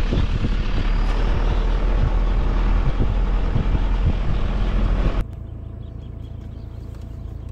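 Vehicle driving on a rough dirt track: loud engine and road rumble with scattered knocks from the bumps. It cuts off suddenly about five seconds in to a much quieter steady hum.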